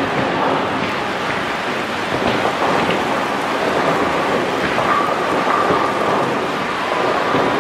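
Steady bowling-alley din: balls rolling down the wooden lanes and pins clattering across many lanes, with a few faint knocks.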